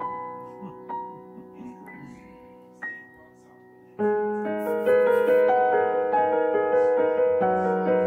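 Background piano music: sparse held notes fading away, then about four seconds in a louder, fuller passage of quick repeated notes begins.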